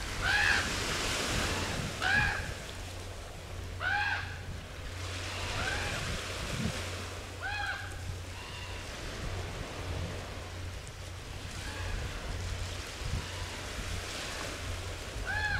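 Common raven calling repeatedly, a short arched call about every two seconds, fewer and weaker after the middle, with one more strong call near the end. A steady wash of waves and wind runs underneath.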